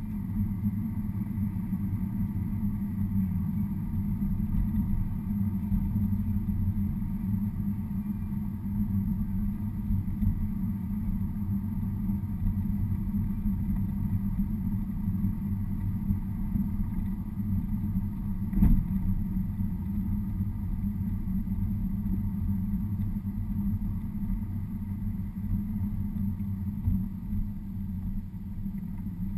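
Car cabin noise while driving: a steady low rumble of engine and tyres on the road. A single sharp knock comes about two-thirds of the way through.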